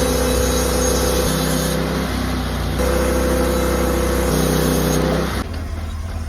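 Engine-driven sawmill running loud and steady under load, with a hiss of cutting over the engine note that shifts in pitch a few times; about five seconds in it drops back to a quieter running sound.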